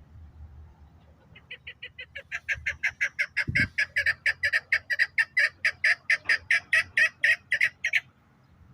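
Chukar partridge calling: a long run of short, evenly repeated chuk notes, about four or five a second, swelling in loudness and then stopping abruptly near the end. A single dull thump sounds partway through.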